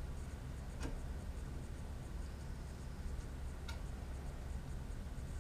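Small metal parts of a CNC gantry being fitted by hand onto an aluminium rail over T-nuts: faint ticks and two sharper clicks, one about a second in and one about three seconds later, over a steady low hum.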